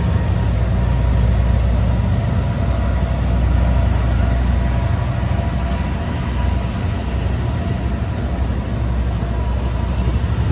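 Amtrak Capitol Corridor passenger train pulling out, its bilevel cars rolling past at low speed with a steady low rumble of wheels on the rails.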